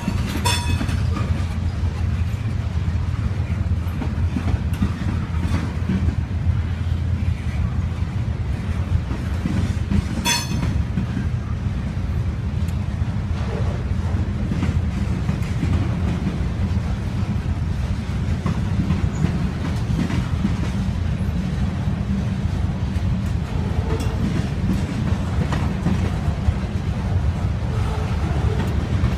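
Slow freight train's covered hopper cars rolling past: a steady low rumble of wheels on rail, with a sharp clank at the very start and another about ten seconds in.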